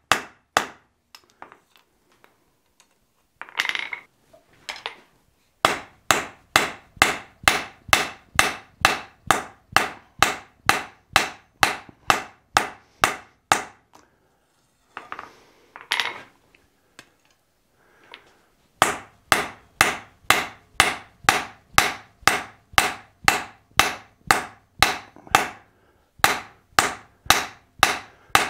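Hand hammer striking red-hot steel on an anvil, a fast even rhythm of about two to three ringing blows a second, drawing a thick piece of steel out thin for a back plate. After a few scattered knocks near the start the blows come in two long runs, with a pause of a few seconds midway.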